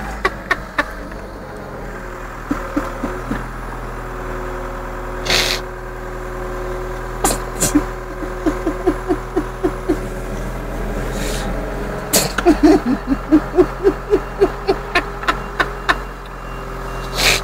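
Forklift driving slowly with a steady motor hum and a held whine. Over it, a person's voice comes in repeated trains of short rhythmic bursts, three or four a second, with a few brief hissing rustles between them.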